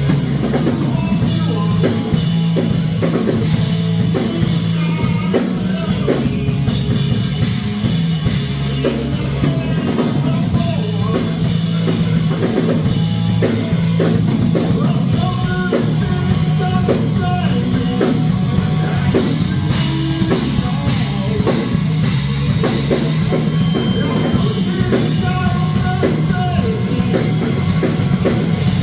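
Heavy rock music played by a band, with drum kit, electric guitar and bass going steadily throughout.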